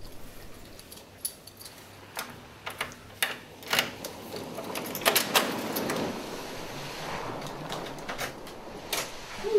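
Keys rattling and clicking in a door lock, followed by the door's latch being released and the door opening, with a couple of later clicks from the door and handle.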